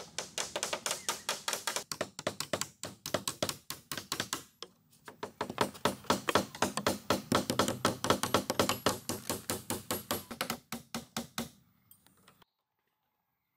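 A hand tool striking wood in rapid, even knocks, about five a second, with a brief pause about four and a half seconds in. The knocking stops about eleven and a half seconds in.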